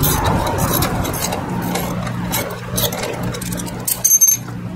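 Hand socket ratchet clicking in irregular runs as a 12 mm bolt is loosened on a scooter's swing arm, with a ringing metal clink about four seconds in as a tool or bolt is set down on the tile. A steady low hum runs underneath.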